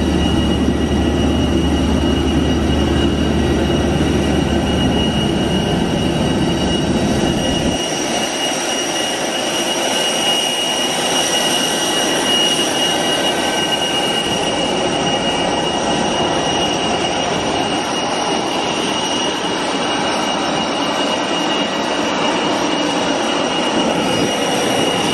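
Airport apron noise: a steady, loud whine with several held high tones from the airliners standing by. Under it runs a low engine rumble that cuts out about eight seconds in.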